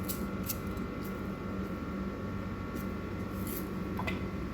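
Green onion seasoning being sprinkled over raw julienned chicken breast: a few soft, scattered ticks over a steady room hum.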